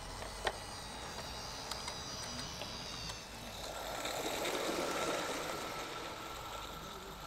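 A garden-scale model train running past, its sound swelling to a peak about five seconds in and then fading away. A single sharp click comes about half a second in.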